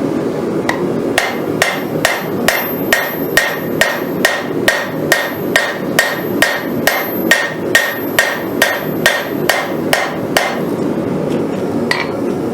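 Hand hammer forging a hot Damascus steel blade on an anvil: steady, evenly paced ringing blows, about two and a half a second. The blows stop about ten seconds in, and one lone strike follows near the end.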